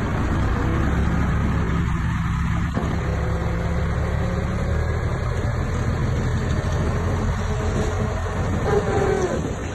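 Crawler bulldozer's heavy diesel engine running steadily at working revs, a constant low drone, with a short metallic squeal about nine seconds in.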